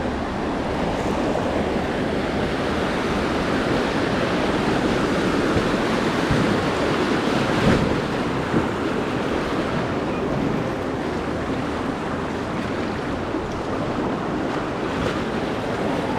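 River rapids rushing in a steady, unbroken wash of whitewater noise, with two brief louder splashes or knocks a little past the middle.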